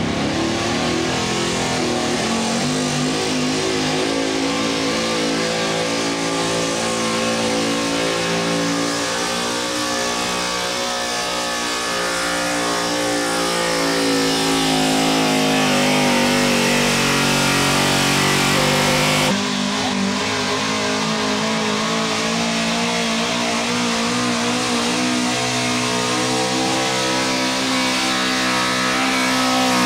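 Big-block pulling-truck engines running hard under load while dragging a weight-transfer sled, pitch rising and falling as the revs change. The sound changes abruptly about nineteen seconds in, where one run gives way to another.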